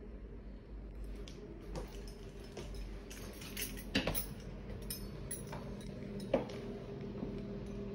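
Scattered light clinks and knocks, the loudest about four seconds in and again just after six seconds, over a steady low hum.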